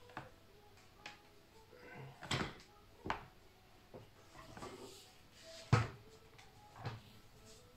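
Black rubber pump cable and its bare copper conductors being handled and twisted together on a tabletop: scattered knocks and rubbing, the sharpest knock a little before six seconds in.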